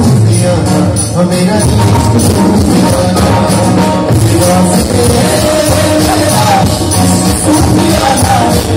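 Live band playing loudly through a PA, with a male singer over acoustic and electric guitars, keyboard and drums.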